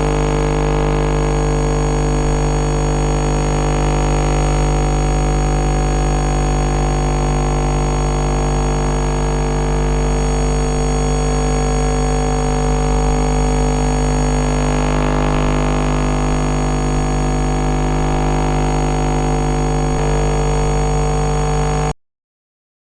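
Harsh electronic emergency-alert alarm: many steady tones stacked over a noisy hiss, held at one loud level without change, cutting off suddenly near the end.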